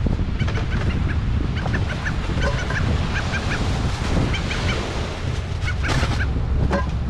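Wind buffeting the microphone, with a scatter of short squeaky, honk-like calls and a brief crinkle of aluminum foil about six seconds in.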